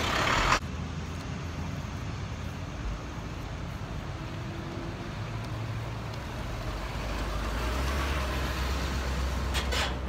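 Tree crew's work trucks running, a steady low engine rumble that grows louder near the end as a truck pulls away, with a few knocks just before the end.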